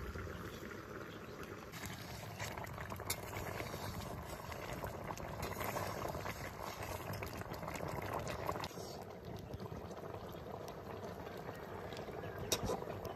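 Pork curry boiling in a pot: a steady bubbling with many small pops, one sharper pop near the end.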